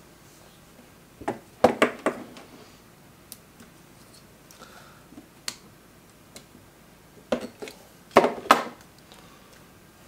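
Clicks and clatters of small plastic and metal parts as a car cassette player is taken apart by hand. There are two bunches of sharp knocks, one about a second and a half in and one near the end, with a few single ticks between.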